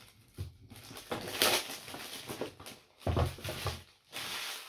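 Cardboard and paper packaging being handled while a box is unpacked: irregular rustling and crinkling, with a few soft knocks a little after the midpoint and a longer rustle near the end.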